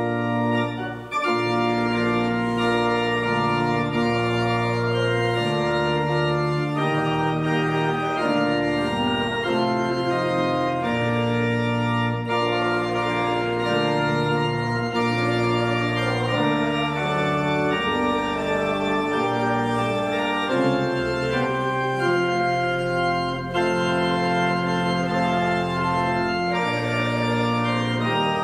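Church organ playing a hymn tune in slow, sustained chords that change about once a second, with a brief break between phrases about a second in.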